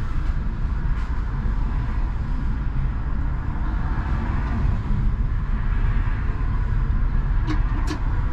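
Škoda 39T tram running on the line, heard from inside the vehicle as a steady low rumble of wheels on rails and drive. Two brief high-pitched squeaks come near the end.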